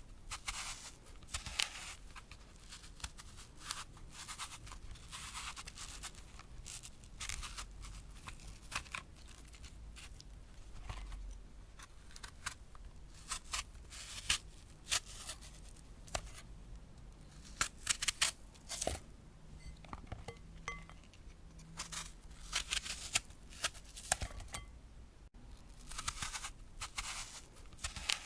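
A crisp green apple being cut: clusters of sharp, crunchy cracks and snaps as the blade splits the flesh, repeated many times with short pauses between cuts.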